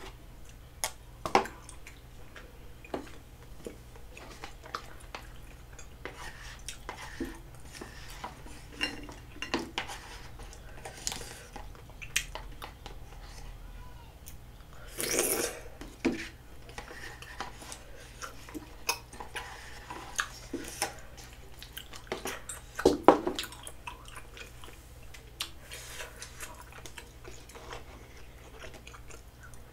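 Eating sounds: wooden spoon and chopsticks clicking and scraping in paper cups of saucy rice cakes, with chewing. Scattered light clicks run throughout, with two louder, longer bursts about halfway through and again about three quarters of the way in.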